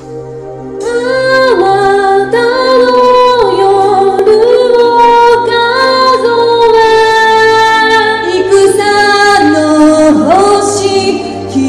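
Female vocal duo, an alto and a soprano, singing a song over instrumental accompaniment. A quiet opening of accompaniment alone is followed by the voices coming in about a second in.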